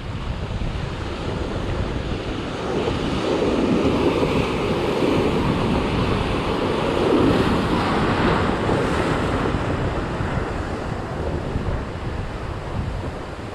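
Ocean surf breaking and washing in over rocks and sand, with wind buffeting the microphone. The wash swells louder in the middle as a wave breaks and rushes in, then eases off.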